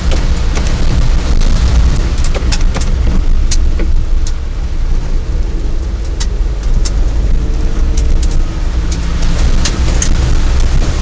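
A vehicle driving over a rough unpaved forest road: a loud, steady low rumble with stones and gravel clicking sharply and irregularly against it.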